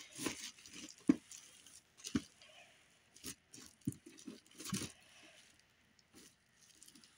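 Bubble wrap around a boxed figure crinkling and crackling under a gloved hand as the box is lifted out of a basket and set down, in irregular short crackles and soft knocks that die away over the last two seconds.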